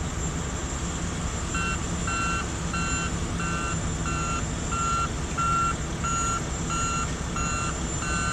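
A heavy vehicle's backup alarm beeping steadily, about two beeps a second, starting about a second and a half in. It is heard from inside a truck cab over a steady low engine rumble.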